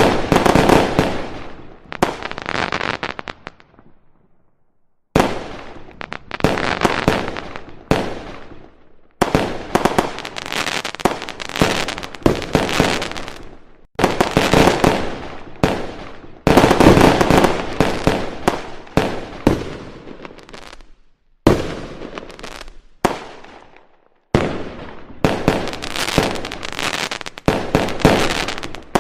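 Aerial firework shells bursting one after another in a steady barrage. Each sharp bang fades away over about a second, with two short lulls along the way.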